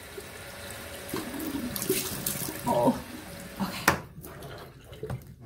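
Tap water running into a bathroom sink as a face is rinsed by hand, with a couple of short vocal sounds. About four seconds in there is a sharp click and the running water stops.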